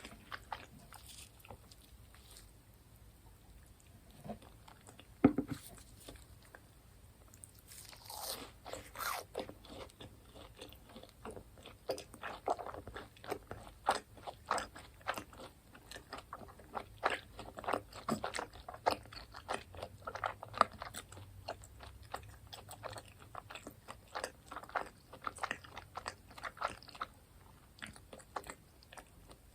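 Close-miked biting and chewing of crispy fried food, with crunching. The first several seconds are quieter, with one loud bite about five seconds in, then dense crunching from about eight seconds on.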